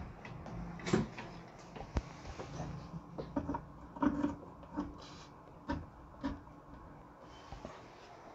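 Scattered small clicks and knocks of hands working cables and a plug connector on a sheet-metal amplifier chassis, the loudest about 1, 2 and 4 seconds in.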